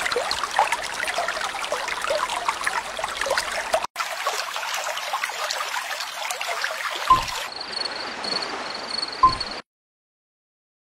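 Running water trickling and gurgling like a stream, with a short break about four seconds in. In the last few seconds a faint high pulsing tone joins it, with two small knocks, before it cuts off to silence about a second before the end.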